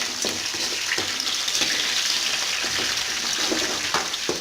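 Onion, dried red chillies and curry leaves sizzling steadily in hot oil in a kadai, with a few short knocks of a spoon stirring.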